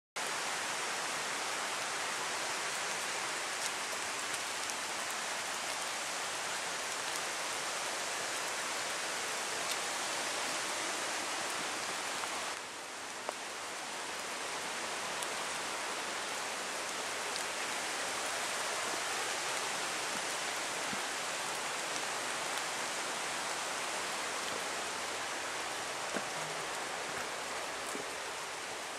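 Steady wash of water noise with a few faint ticks scattered through it. It starts abruptly and dips briefly about twelve seconds in.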